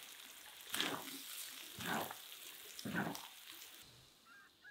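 Ground meat with tomatoes and peppers sizzling in a wide black pan over a fire, stirred with a wooden spatula: a steady frying hiss with three louder scraping strokes about a second apart. The sizzle stops shortly before the end.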